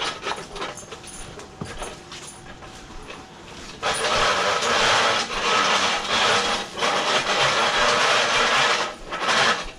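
Loud scraping and rubbing that starts suddenly about four seconds in, after a few light knocks and clicks: a heavy item being pulled and dragged over a hard surface.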